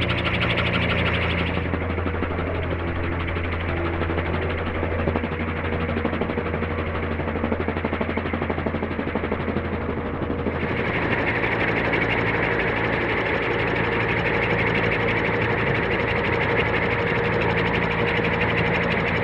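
Giant-scale radio-controlled Airwolf model helicopter in flight: a steady mechanical whine of the drive and main rotor, with a constant low hum. The tone shifts about ten seconds in, becoming brighter and higher as the helicopter comes in low over the grass.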